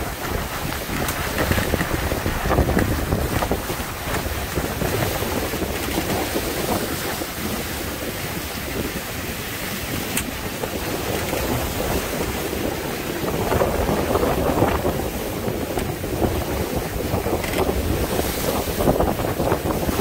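Wind buffeting the microphone and water rushing and splashing past the hulls of an F31 trimaran sailing in a breeze, with a few short creaks from the double-reefed mainsail.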